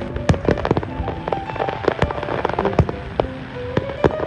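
Aerial fireworks display: shells bursting in a rapid string of sharp bangs and crackles, several a second, with music playing throughout.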